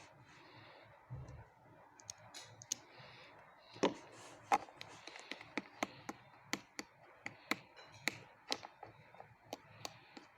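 Sharp, irregular clicks and taps from making clear slime, sparse at first and then about two a second from about four seconds in.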